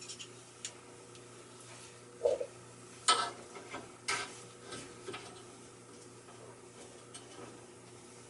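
Metal clinks and taps from handling copper pipe and fittings, with two louder knocks about three and four seconds in, over a faint steady hum.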